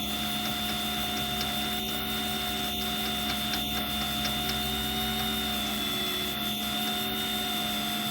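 Handheld power drill running at a steady speed, a small bit drilling into a broken steel bolt; its whine holds one even pitch without slowing, the sign that the bit is cutting freely and not binding.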